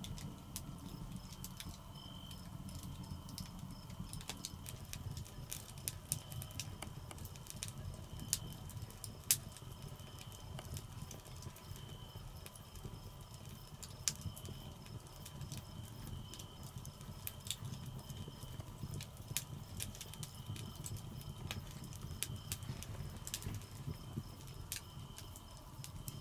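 Wood fire crackling in a stone hearth, burning down to embers: scattered sharp pops over a steady low rumble. A faint high note repeats every couple of seconds in the background.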